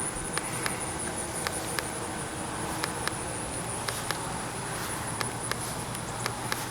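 Insect chorus, crickets or similar, making a steady high-pitched pulsing trill over outdoor background noise, with scattered faint ticks throughout.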